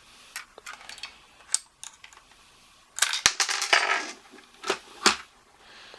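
Small hard clicks and clinks from handling the diecast toy bus's battery compartment and its G10 button-cell batteries, with a busier clatter about three seconds in.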